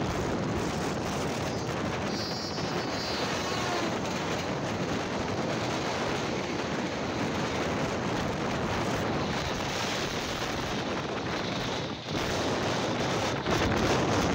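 Steady rush of a train running at speed, heard from an open carriage window, with wheels on rail and wind buffeting the microphone. It gets louder near the end.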